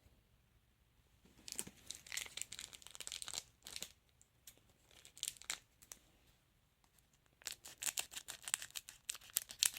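A trading card packet wrapper being torn open and crinkled, in bursts of crackling: from about a second and a half in, briefly around five seconds, and a denser run near the end.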